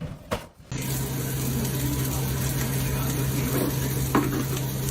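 A steady hiss over a constant low hum begins just under a second in, with one sharp click about four seconds in.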